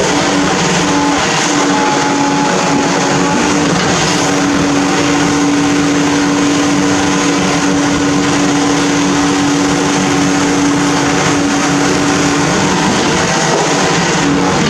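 Amphibious backhoe's diesel engine running hard, a loud, steady machine noise. A steady whine, typical of the hydraulic pump, comes in about four seconds in and drops out near the end.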